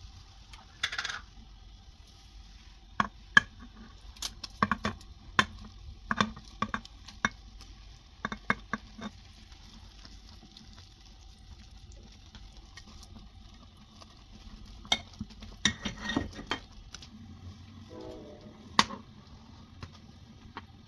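Kitchen utensils clinking and knocking against dishes and pans: scattered sharp clicks in clusters, with quieter pauses between them.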